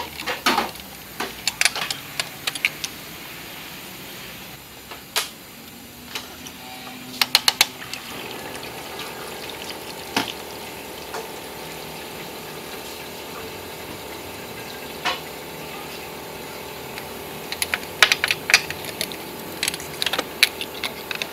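Hand tools working the bolts of a car engine's water pump pulley: scattered metal clicks and clinks, with quick runs of clicks about seven seconds in and again near eighteen seconds. A steady hum comes in about eight seconds in.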